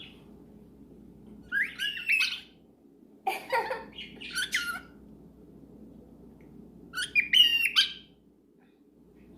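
Cockatiel calling in three short bouts of high chirps and squawks, about a second and a half in, around three to four and a half seconds in, and again near seven seconds.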